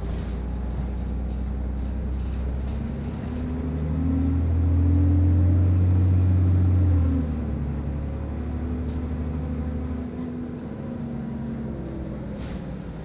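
City bus engine heard from inside the cabin while riding: a steady low drone that swells and rises a little in pitch as the bus accelerates about four seconds in, then eases off to a steadier run about halfway through.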